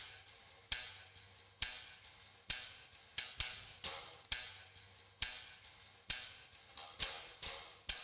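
Steady clock-like ticking percussion: a sharp, bright hit a little under every second with lighter ticks between, each trailing off in a short hiss, over a faint low hum.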